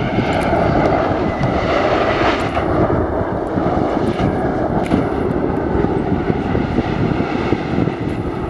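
McDonnell Douglas MD-88 jetliner with rear-mounted Pratt & Whitney JT8D engines, rolling out on the runway just after landing: a steady jet rumble as it slows, quiet for an MD-88.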